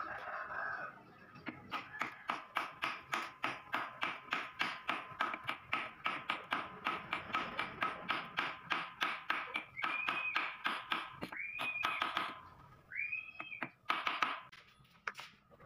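Small ball-peen hammer tapping a 6001 steel ball bearing into the bore of a KLX150 suspension linkage. The metallic taps come fast and even, about four to five a second, then slow to a few separate knocks near the end. A few short, high, arched chirps sound over the last few seconds.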